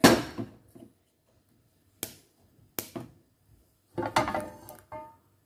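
A few sharp knocks of kitchen items being handled at the stove: single clicks about two and three seconds in, then a short run of clatter around four seconds in.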